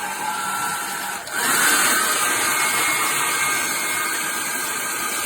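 Conair Cord-Keeper 1875 W travel hair dryer blowing steadily. About a second in it dips briefly, then runs louder and higher on a stronger speed setting.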